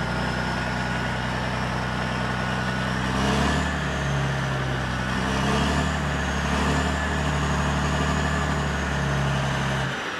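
Cold turbo diesel engine of an RD-165 machine running, with a thin high turbo whistle over a steady engine note. The revs swell a few times with the whistle rising each time. Near the end the engine note drops suddenly and the turbo whistle slides down.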